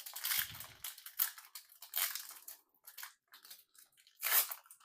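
Foil Magic: The Gathering booster pack wrapper being crinkled and torn open, a run of irregular rustles and rips with the loudest a little after four seconds in.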